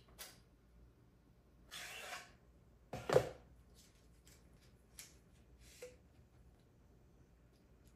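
Small hard parts being handled: a short scrape about two seconds in, a louder clack a little after three seconds, then a few light clicks.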